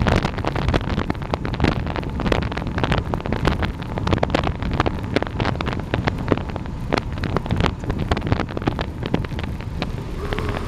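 Wind buffeting the microphone of a camera on a road bike descending at speed: a constant low rumble broken by rapid crackling gusts.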